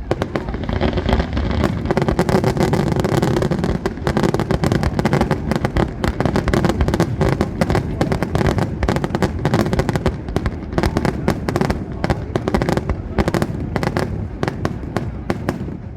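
Fireworks display: a dense, continuous barrage of rapid bangs and crackles over a low rumble.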